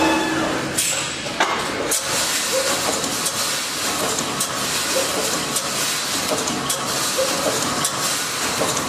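Automatic welded wire mesh machine running, with a steady hiss and crackle as its row of welding electrodes fires. Light ticks and knocks recur throughout, and a steady whine stops about a second in.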